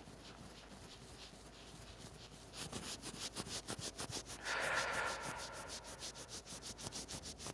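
Fingertips rubbing hard at the front of the shoulder, working a massage point in fast rhythmic scratchy strokes, several a second. The strokes start a few seconds in and are loudest about five seconds in.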